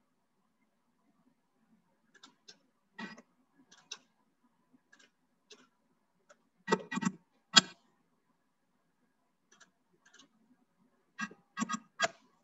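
Scattered clicks from a computer mouse and keyboard keys, about a dozen at irregular intervals. Two louder clicks come about seven seconds in, and a quick run of clicks near the end.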